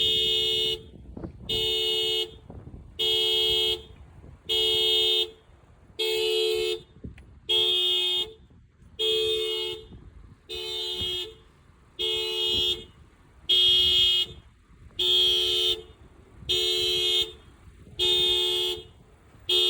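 Car horn sounding in a steady, even rhythm: about fourteen honks, each under a second long, roughly one every second and a half.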